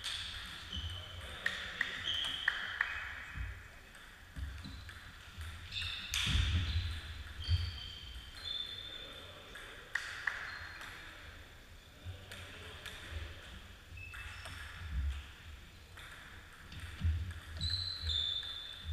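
Table tennis ball clicking off bats and table in quick rally hits, a run of them about a second and a half in and more near the end, with short high squeaks from players' shoes on the wooden sports-hall floor in between.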